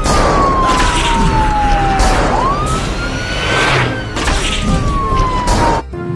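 Police car siren wailing: one tone slides slowly down, sweeps back up about two seconds in, then slides down again, over a steady rush of noise. It cuts off suddenly near the end.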